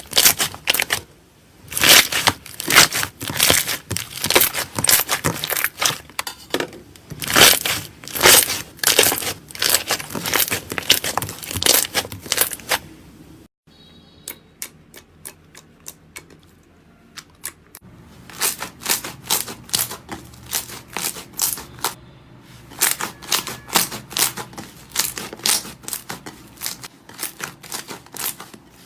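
Slime squished and pressed by hand, with fast crackling and popping clicks. About halfway through the sound cuts off, then comes back for a few seconds as only a few faint clicks before the dense popping starts again.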